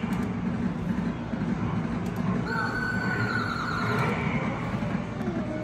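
Coin-operated horse kiddie ride running with a steady low rumble; about halfway through a high drawn-out call sounds for about a second.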